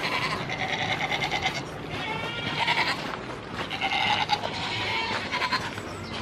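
Goats bleating: several long, wavering calls, one after another.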